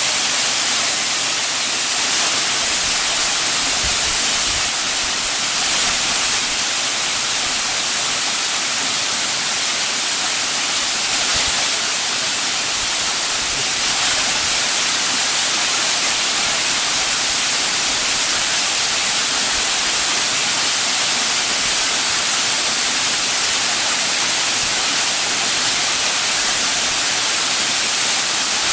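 Waterfall pouring into a rock pool: a steady, loud hiss of falling water that holds unchanged throughout.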